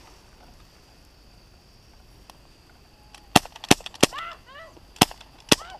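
Airsoft guns firing five sharp shots in just over two seconds, about halfway through, with a brief shout between them.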